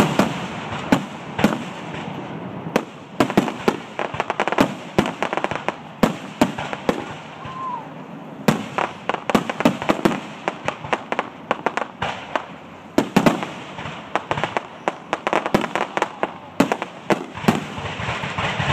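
Aerial fireworks shells bursting in quick succession: dense runs of sharp bangs and crackles, broken by a few short lulls.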